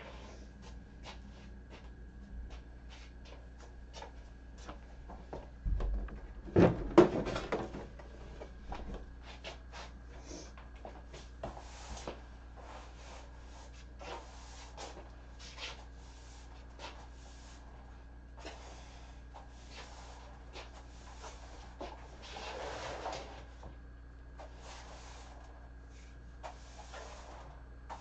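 Scattered small knocks, clicks and rustles of a person moving about a room and handling things, with a louder cluster of thumps and clatter about six to seven seconds in. A faint steady hum runs underneath.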